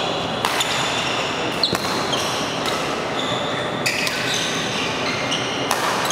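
A badminton doubles rally in a large hall: rackets strike the shuttlecock about five times, roughly a second apart, while court shoes squeak on the synthetic floor between the shots.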